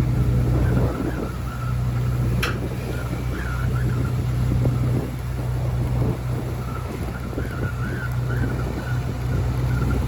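Heavy diesel engine running steadily at a low drone, with a single sharp click about two and a half seconds in.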